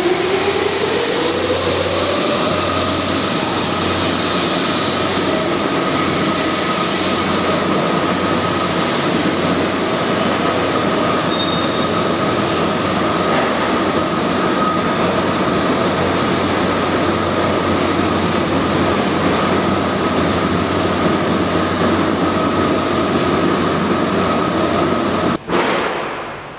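Loud, steady machine noise: a hum under a rushing noise, with a whine that rises in pitch over the first couple of seconds and then holds steady. It cuts off abruptly near the end.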